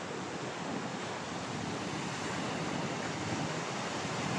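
Sea surf breaking and washing up a sandy beach, a steady rush of water, with wind on the microphone.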